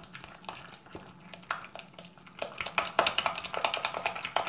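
Sticky homemade slime being squeezed and pulled by hand, giving a run of small wet clicks and pops, sparse at first and then rapid and dense from about a second and a half in. The slime is still sticky, clinging to the fingers.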